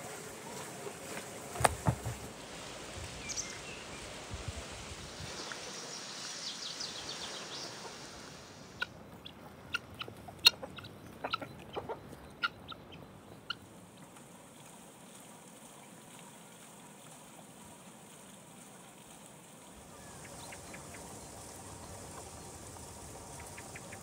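A hen foraging in grass: a few seconds of sharp, irregular pecking taps and short clucks. Before that, about two seconds in, a knife cutting a lamb carcass gives a couple of loud knocks on a wooden board.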